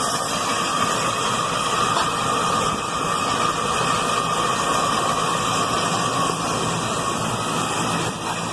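Rooftop HVAC unit's compressor running, with a steady whine over a loud, even hiss. It sounds bad, the sign of an unhappy, failing compressor.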